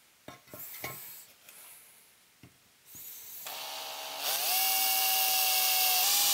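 A few light knocks as the metal chassis box is set down on a wood block, then a power drill starts about three seconds in and runs steadily with a whine, drilling a 1/8-inch pilot hole through the sheet-metal chassis.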